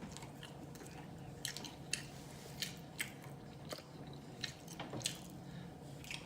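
Close-miked mouth sounds of someone eating fried chicken: chewing with wet smacks and sharp crunchy clicks, irregular, about one or two a second.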